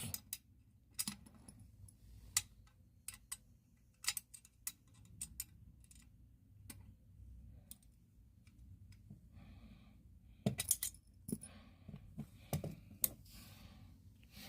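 Gamewell Century fire alarm pull station being handled and reset by hand: scattered small metal clicks and rattles, with a louder cluster of clicks about ten seconds in.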